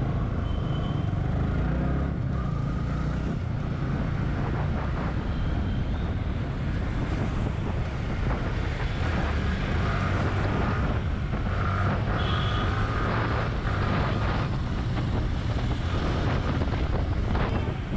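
Motorcycle engine running steadily on the move, with wind on the microphone and surrounding road traffic.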